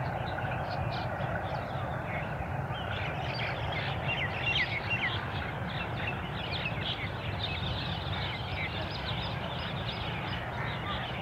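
A large flock of birds calling, with many short, high chirps and squawks overlapping, over a steady low rumble.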